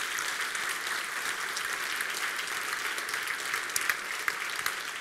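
Audience applauding steadily, the many hand claps blending into an even patter.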